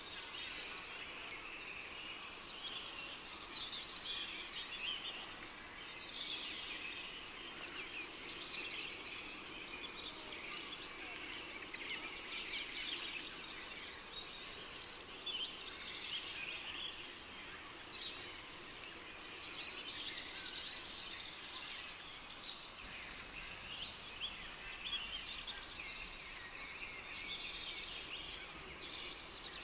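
Rainforest insect chorus: a cricket chirping evenly at about three high chirps a second, pausing for a couple of seconds past the middle and then resuming, over scattered chirps of other insects and a few short bird notes.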